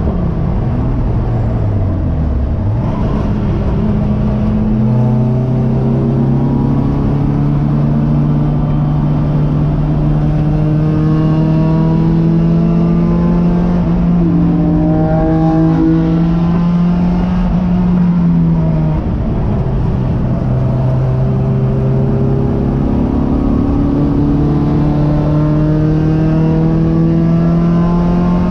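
Race car engine heard from inside the cockpit, under track driving. The revs fall as the car slows at the start, then climb slowly under load for a long stretch. They drop sharply with an upshift about two-thirds of the way through, then climb again.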